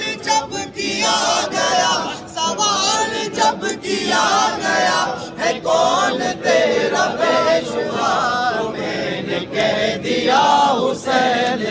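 A group of men singing a devotional song in praise of Imam Hussain together, in Urdu, without instruments.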